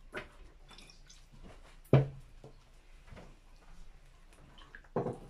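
Soy sauce poured from a bottle into a plastic measuring cup, then a wet kimchi mix stirred in a large plastic basin with a wooden spoon and metal tongs. Light clicks and knocks come from the utensils and containers, with one sharp, loud knock about two seconds in.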